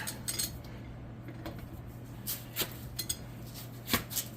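Hand tools clinking on metal as wrenches and sockets are worked on rusty nuts: scattered short knocks and clinks, the loudest near the end, over a faint steady hum.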